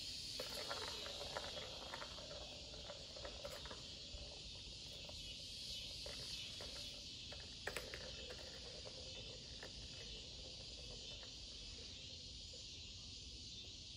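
Steady high chorus of crickets, with faint scattered clicks and taps from cats pawing at a plastic ball-track toy, a sharper pair about eight seconds in.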